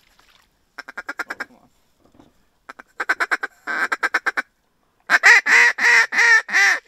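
Hunter blowing a duck call: several quick strings of quacking notes that grow louder, the last and loudest running about two seconds near the end. He is calling to ducks that are flaring off the decoys.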